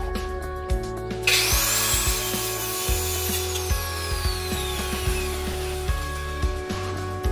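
Corded circular saw starting about a second in with a rising whine and cutting through a wooden board with a loud, hissing rasp. Its whine falls in pitch over the next couple of seconds before the saw stops near the end. Rock instrumental music plays underneath.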